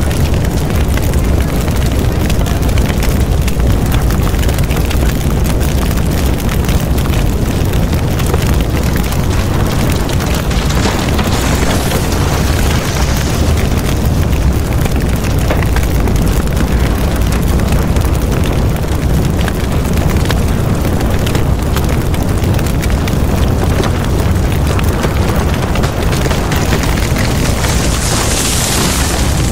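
Large fire burning through market kiosks: a loud, steady low rumble with scattered faint cracks, and a hiss that swells briefly near the middle and again near the end.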